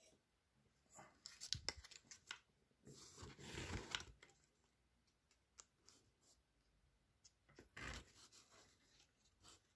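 Faint handling noises: a paper stencil rustling and a few light clicks as it is picked up and positioned, with the longest rustle about three seconds in and another short one near eight seconds.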